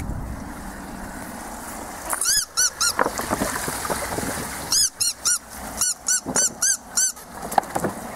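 Vizsla puppy squealing in short, high-pitched yelps that rise and fall, four in quick succession and then about six more a couple of seconds later.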